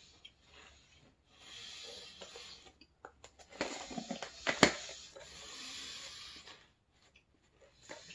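A Pringles can being handled and its plastic lid pressed back on, with a sharp snap of the lid about four and a half seconds in, the loudest sound. Softer hissing stretches come before and after it.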